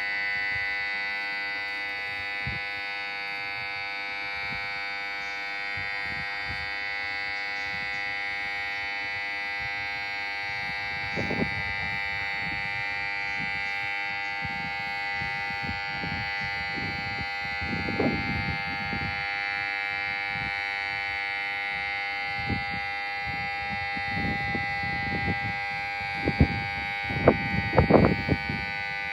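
Station platform emergency-stop alarm sounding continuously as a steady buzzing tone of several pitches, the sign that a platform emergency stop button has been pressed. A few knocks and thumps come through it, the loudest near the end.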